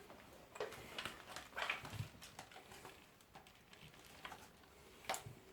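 Faint handling noises: a few light knocks and clicks with some rubbing, spread unevenly, the loudest a sharp click near the end.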